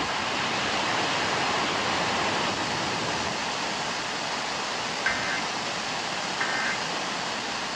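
Steady hiss of radio static from an FM broadcast capture. About five seconds in come two short two-tone data bursts, about 1.3 s apart: the Emergency Alert System end-of-message code that closes the test.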